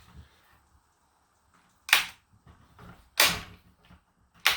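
Three sharp snaps, about a second and a half apart, from a part of a Worx cordless chainsaw being worked by hand and found stiff.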